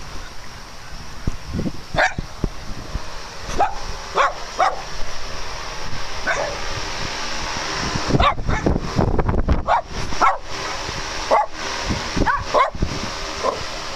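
Dogs barking and yipping on and off, with a quick run of barks a little past halfway.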